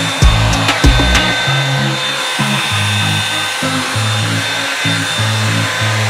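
Background music with a moving bass line, with drum hits during the first second or so. Under it runs the steady whir and air rush of a Revlon One-Step hair dryer brush in use.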